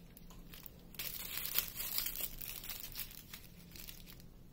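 Small plastic bags of square diamond-painting drills crinkling as they are handled, a run of faint crackles starting about a second in.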